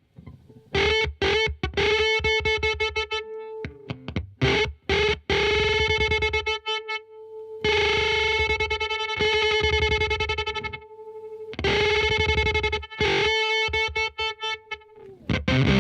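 Electric guitar played through a FuzzHugger FX Lab Ratchet fuzz pedal with its 'Ratch' gate set low: held notes and short phrases in a gated 8-bit fuzz, each note breaking into a rapid stutter as it fades and then cutting off sharply.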